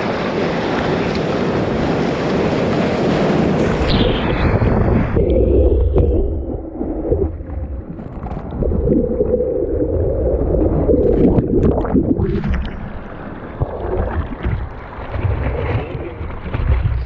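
Whitewater rushing and splashing over a surfboard-mounted camera as a wave is caught and ridden. For the first five seconds it is a loud hiss of spray and wind, then it turns muffled and low, like water washing over the camera, with a few sharp splashes.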